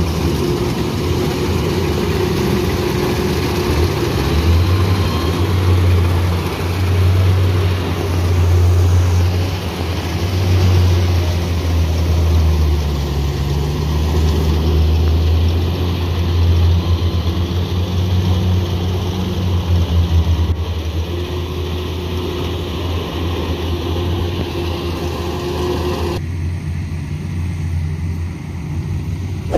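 Kubota rice combine harvester's diesel engine running under load as the machine harvests through a muddy paddy: a steady low drone that swells and eases every few seconds, over machinery noise. About four seconds from the end it turns abruptly duller and more distant.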